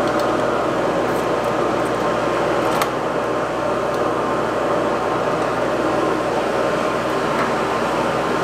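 Variable-speed belt grinder running steadily while a knife's rough handle material is ground down against the belt, with a brief click about three seconds in.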